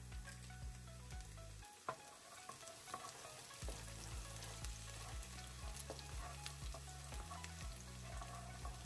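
Chopped garlic sizzling and crackling in hot oil with cumin and mustard seeds in a wok, with many small pops and a wooden spatula stirring through it. Soft background music with low notes runs underneath and drops out for a couple of seconds after about two seconds in, where there is one sharp tick.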